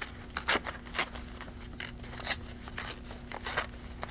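A sheet of paper being torn by hand in a series of short rips, about six or seven, as a fringed edge is ripped into it.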